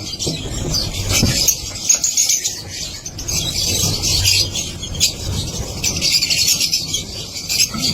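A colony of lovebirds chattering: many rapid, high, overlapping chirps and squeaks without a break, over a low steady rumble.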